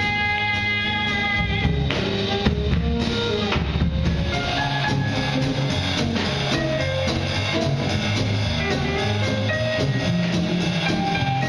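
Small jazz combo of drum kit, electric bass, guitar and piano playing a swing tune live. A long held note opens it, then the drums come to the fore with frequent hits over a moving bass line.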